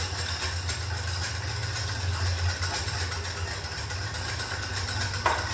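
A wire whisk clicking quickly and repeatedly against a bowl as instant coffee, sugar and hot water are whipped into foam, over a steady low hum.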